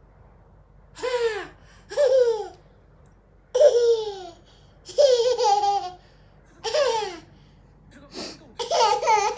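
A toddler laughing in a string of about six short, high squeals, each falling in pitch, a second or so apart.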